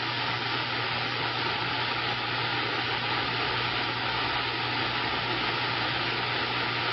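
Steady static hiss from a CB radio receiver with a low, even hum underneath: a carrier keyed open on the channel with no voice on it.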